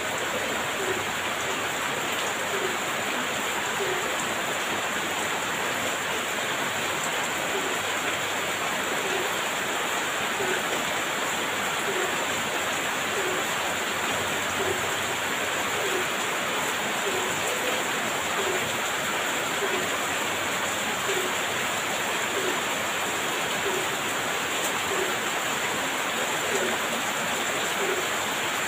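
Heavy rain falling steadily, an even hiss. A faint short low note repeats a little more than once a second through it.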